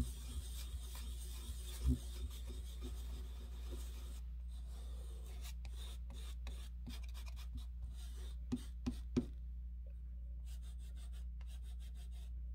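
Thick sidewalk chalk scratching and rubbing on paper in many short strokes, over a steady low hum.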